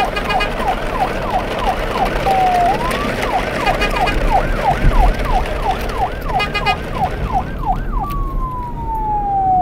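Siren sound switching between a slow falling wail and a fast yelp of about three to four rising-and-falling whoops a second, over a steady hiss.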